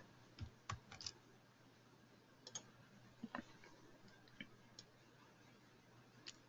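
Near silence with a few faint, scattered clicks of a computer mouse.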